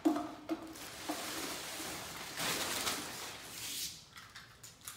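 Brown packing paper crinkling and rustling as it is pulled and torn away during unwrapping, in uneven crackling handfuls that die down near the end.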